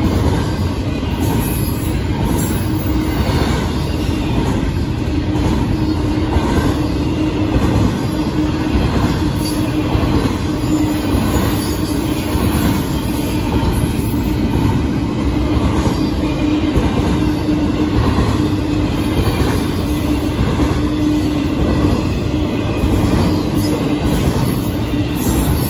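Union Pacific double-stack intermodal train's container cars rolling past close by: a steady rumble of wheels on rail with clickety-clack, and a steady low whine running through it.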